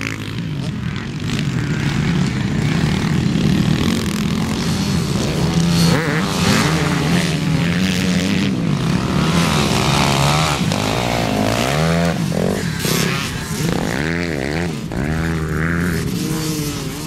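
Several vintage twinshock motocross bikes revving, their engines rising and falling in pitch over and over as the bikes labour through deep mud.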